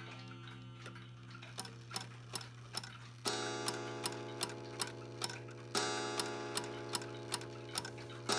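Mechanical wall clock ticking about two and a half times a second and striking on its gong, the strokes about two and a half seconds apart, each one ringing on.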